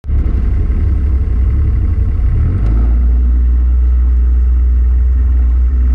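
Small boat's motor running at low speed as the boat moves off, a deep steady hum; its note shifts and evens out about two and a half seconds in.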